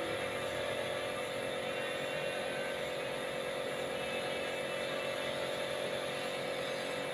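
Compressed-air spray gun hissing steadily as it sprays clear gloss melamine lacquer onto a wooden chair, with a steady hum underneath.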